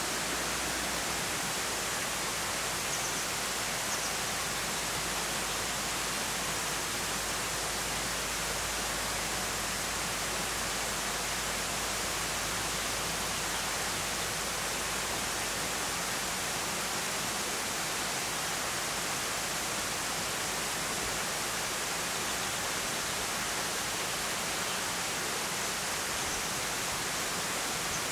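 Steady rushing of flowing water, like a forest stream, holding an even level throughout.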